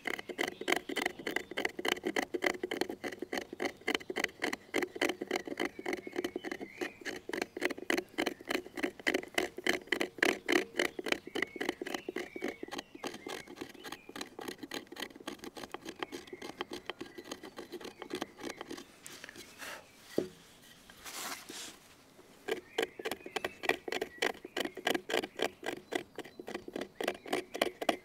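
Victorinox Huntsman Swiss Army knife's bottle-opener hook scraping out the hollow of a wooden spoon bowl: quick, rhythmic scratching strokes, several a second, tearing out wood fibres. The strokes break off briefly about twenty seconds in, then go on.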